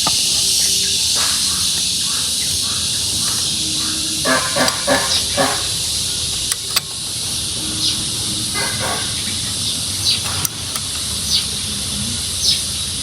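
Outdoor rural ambience: a steady high insect drone with short bird chirps scattered through it, and a brief cluster of other sounds about four to five seconds in.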